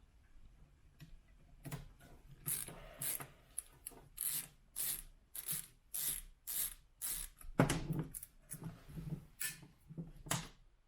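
Screws being turned out of a soundbar's metal chassis with a hand screwdriver: a series of short rasping strokes, about two a second, beginning about two seconds in.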